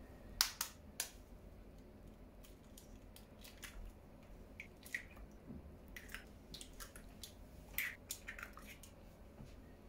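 Eggs being cracked into a plastic mixing bowl: sharp taps of the shells on the bowl and the crackle of shells being pulled apart, with a few loud clicks in the first second and smaller clicks and crackles after, bunched together near the end.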